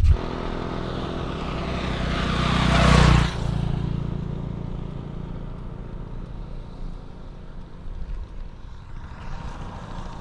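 A motor vehicle passing on the road, its noise swelling to a peak about three seconds in and then dropping away suddenly. A steady low rumble continues underneath.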